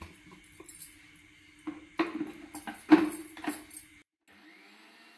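A spoon clinking and scraping against a metal vessel in irregular strokes as wheat flour is worked into a thick ground-corn batter, cutting off abruptly about four seconds in.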